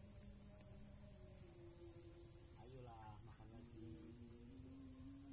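Swamp insects chirring steadily: a continuous high-pitched buzz with a faster pulsing layer running through it.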